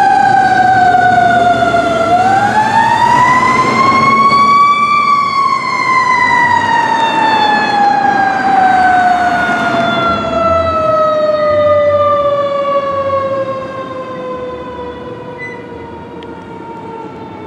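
Fire truck siren on a responding 2014 Pierce Quantum: one long wail that slides down, winds back up for a few seconds, then slowly falls in pitch. It fades in the last few seconds as the truck moves away.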